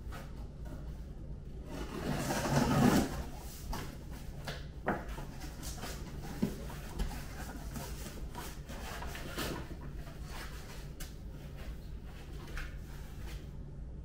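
Large cardboard box being opened: a knife cutting through the packing tape, then the cardboard flaps being pulled open and rubbing. The loudest part is a long rasping scrape about two seconds in, followed by a few sharp clicks and lighter cardboard rustling.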